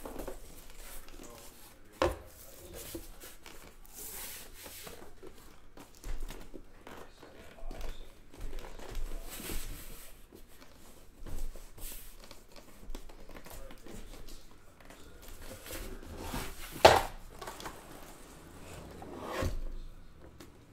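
A cardboard case of sealed trading-card hobby boxes being opened by hand: irregular rustling and tearing of cardboard and tape, with scattered knocks as the case and boxes are handled, the loudest knock about three-quarters of the way through.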